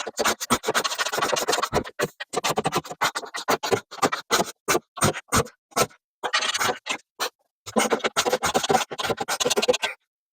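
Rapid clicking and scraping of a ratchet wrench tightening the front bumper bolts, broken up by several abrupt cuts to silence.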